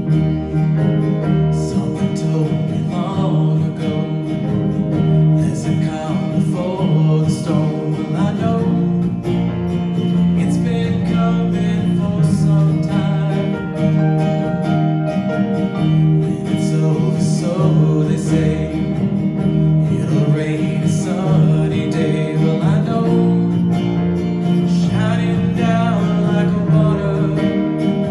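Live acoustic guitar strummed with keyboard accompaniment, and a man singing a melody over them through a microphone.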